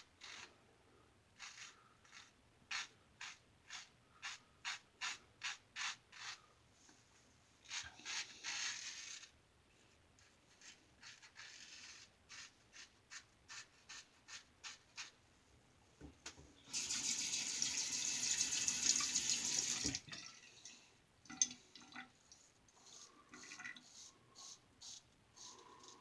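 1887 Star lather catcher safety razor scraping through lathered stubble in a series of short rasping strokes, about two a second. Midway a tap runs for about three seconds to rinse.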